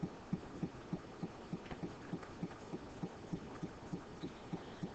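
Faint short low thumps repeating evenly, about three to four a second, over a quiet room background.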